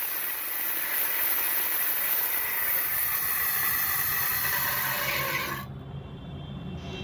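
Angle grinder's abrasive cutting disc grinding a small steel ball, a steady harsh hiss that stops abruptly about five and a half seconds in. The ball is being ground down so that it seats inside a drill spindle.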